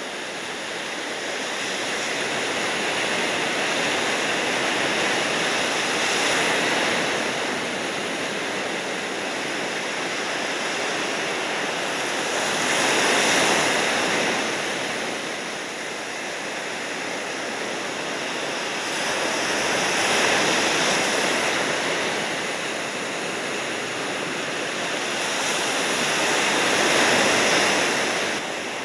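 Ocean surf: waves breaking and washing in, the rush swelling and easing every six or seven seconds.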